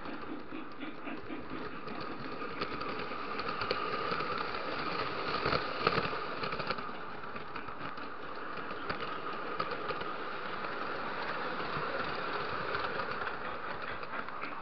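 Lionel O-gauge model train running on three-rail track: a steady motor whir and wheel rumble with fast clicking over the rail joints, and a louder knock about six seconds in.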